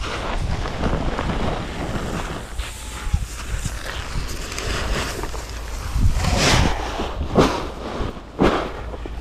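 Wind rumbling on the microphone, with a few sharp swishes about a second apart in the second half.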